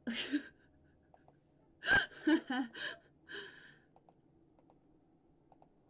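A woman's breathy gasps: a quick breath at the start, a louder cluster about two seconds in that opens with a thump on the microphone, and one more breath a second later.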